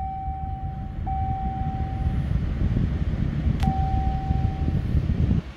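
Ram Rebel's 3.0-litre twin-turbo inline-six running just after start-up, heard from inside the cab as a low rumble that grows louder after about a second. A dashboard chime sounds three times as steady beeps about a second long, and the last beep starts with a click.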